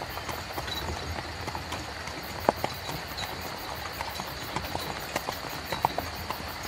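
Horse-drawn carriage on the move: hooves clip-clopping over a steady low rumble of rolling wheels, with scattered knocks, the sharpest about two and a half seconds in.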